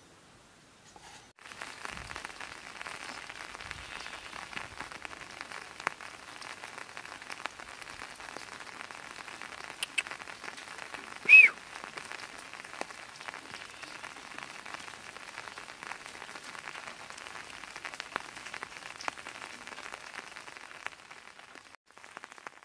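Steady patter of rain with many small ticks, starting about a second in and stopping just before the end. About eleven seconds in, a single short high chirp, rising then falling, is the loudest sound.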